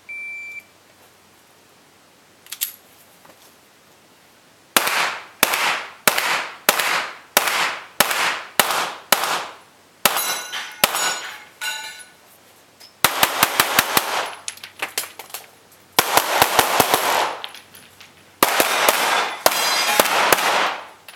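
A shot timer's short electronic beep, then a pistol firing an IPSC course of fire: at first single shots about two a second, then several fast strings of shots, each shot ringing out in the range.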